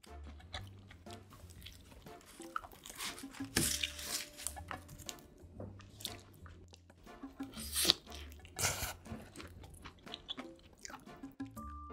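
Close-up eating sounds of pizza topped with shrimp and steak: crisp crunching bites into the crust and wet chewing, with the sharpest crunches about a third of the way in and again about two-thirds through. Quiet background music runs underneath.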